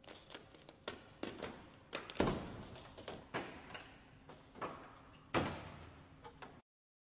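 Windshield glass cracking and the body of a Ford Mustang creaking as a hydraulic plate slowly crushes its roof: a string of sharp cracks and pops, the loudest about two seconds in and again about five seconds in, then the sound cuts off.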